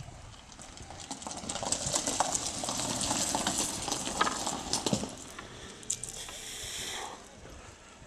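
Footsteps walking along a wooden plank boardwalk and over loose beach pebbles: a run of hard knocking steps with gritty crunching, louder from about a second in and easing off after about five seconds.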